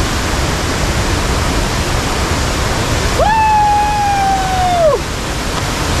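Hogenakkal Falls on the Kaveri River pouring over the rocks: a steady, loud rushing of falling water. About three seconds in, a single long held call rings out over it for nearly two seconds and drops in pitch as it ends.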